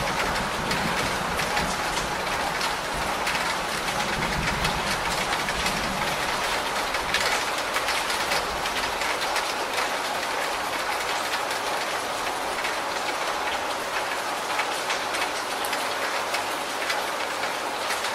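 Heavy rain falling steadily on a corrugated roof and running off its edge in streams. A low rumble of thunder underlies it and fades out about seven seconds in.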